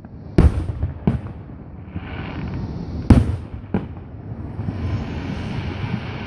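Aerial firework shells bursting overhead: four sharp bangs, the loudest about half a second in and just after three seconds, each followed by a rolling echo.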